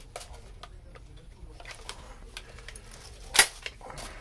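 A sharp click about three and a half seconds in, among faint scattered ticks and handling noises.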